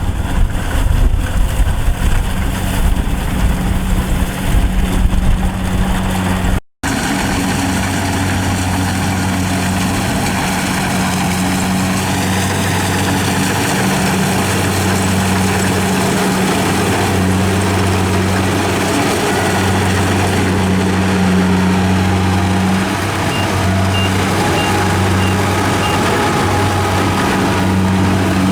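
Engine of a rice harvesting machine running. About seven seconds in there is an abrupt cut, after which the engine hum is steady.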